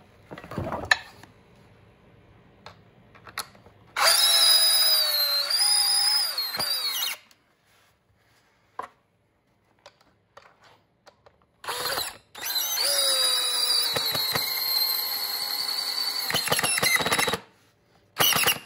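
Power drill driving screws to fasten a leg onto a foam taxidermy manikin: two long runs of the motor's whine a few seconds apart, then a short burst near the end, with a few light knocks of handling in between.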